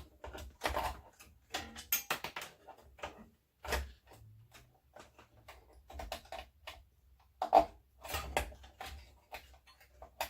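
Scattered clicks, taps and light knocks from hands handling computer hardware. The sharpest knock comes about seven and a half seconds in.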